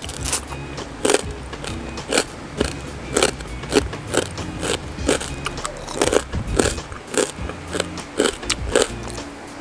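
Close-miked chewing of crispy deep-fried pork belly (lechon kawali), the crackling skin crunching loudly about twice a second, over soft background music.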